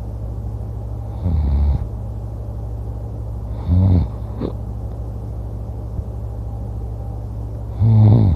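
A man snoring in his sleep: three short, low snores, about a second in, near the middle and at the end, over a steady low hum.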